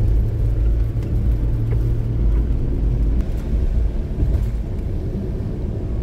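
Car driving on a snow-covered road, heard from inside the cabin: a steady low rumble of engine and road noise.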